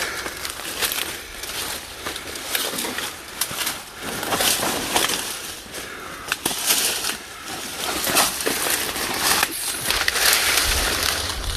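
Saw palmetto fronds rustling and scraping, with dry leaf and pine-needle litter crackling underfoot as someone pushes on foot through dense scrub. The sound is an irregular run of crackles and swishes that swells and fades with each step.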